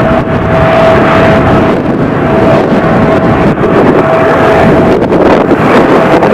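Loud roar of a jet airliner's engines at close range, with a steady high whine over it that fades out near the end. Wind buffets the microphone.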